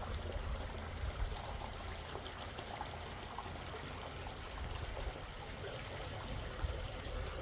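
Steady trickle and splash of water running over a backyard pondless waterfall, with a low rumble underneath.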